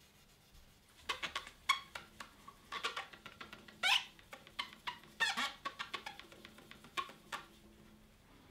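Polishing cloth squeaking in quick rubbing strokes over the glossy nitrocellulose lacquer of a guitar neck and headstock. The run of short, high squeaks, three or four a second, starts about a second in and stops shortly before the end.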